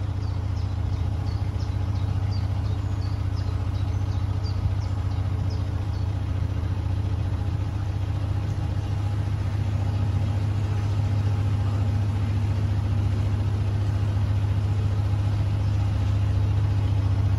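Narrowboat's inboard diesel engine running steadily at low cruising revs, a low even drone that grows slightly louder in the second half.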